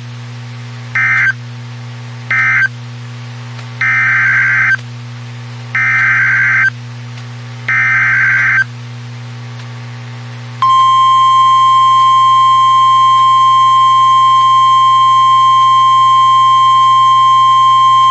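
NOAA Weather Radio SAME data bursts: three short warbling data bursts about a second apart, the end-of-message code for the warning just read, then three longer bursts about two seconds apart, the header of the next warning. About ten seconds in, the steady 1050 Hz weather radio warning alarm tone starts and holds, over a constant low hum.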